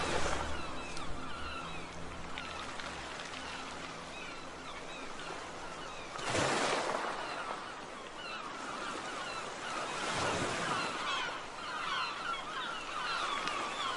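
Ambience of many small birds chirping in quick short calls over a steady rushing wash, with two louder whooshing swells, about six and ten seconds in.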